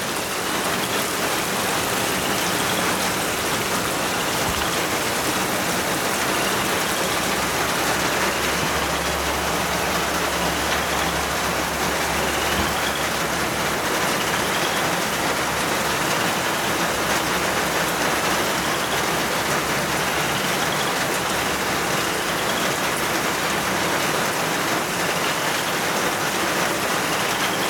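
Heavy rain pouring down steadily in a thunderstorm, a constant even hiss, with faint short rising chirps high in pitch every few seconds.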